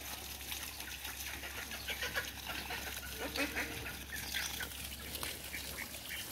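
Domestic ducks quacking in short, repeated calls, over a steady low hum that stops near the end.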